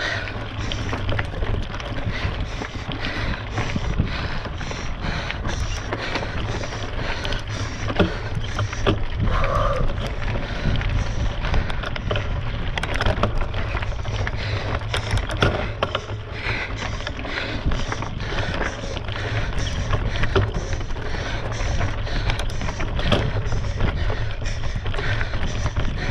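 Mountain bike ridden up a rocky climb: a steady stream of small clicks and rattles from the tyres and bike on stones, with wind rumbling on the microphone throughout.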